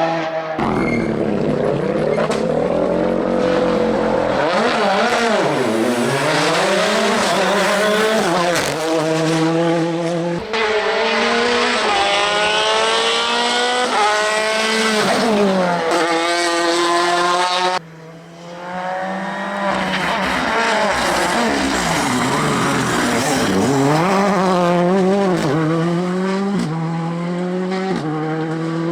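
Ford Fiesta R5 rally car's turbocharged four-cylinder engine at full racing pace, revving up through the gears and dropping back under braking and downshifts. There is a brief lull about two-thirds of the way through.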